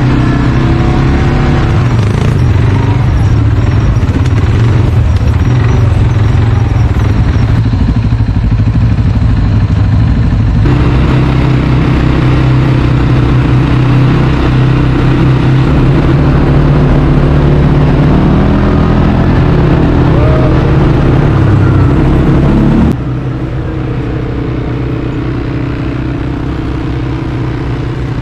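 ATV engines running while riding, a steady loud drone. The sound changes abruptly about 11 seconds in and again about 23 seconds in, and is quieter after the second change.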